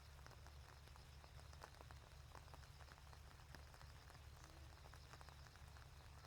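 Faint rain: scattered drops ticking irregularly, over a steady low hum.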